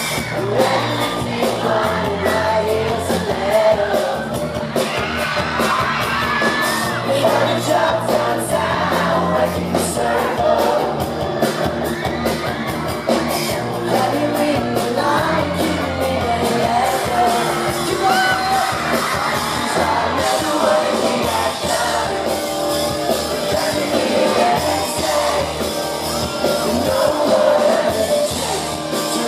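Pop-rock band playing live: sung lead vocals over drums, bass and electric guitars, without a break.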